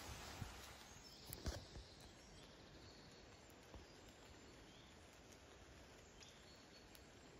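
Near silence: faint, even background hiss with a few soft knocks about a second and a half in.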